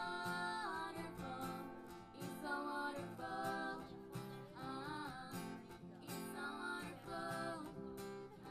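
Music: a strummed acoustic guitar with a voice singing held notes over it.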